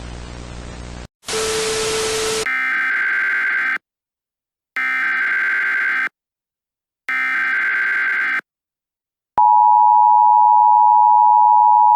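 Emergency Alert System broadcast tones: static hiss for about a second, a short blast of louder noise, then three identical blasts of digital header data about a second apart, and from about nine and a half seconds in the steady two-tone EAS attention signal.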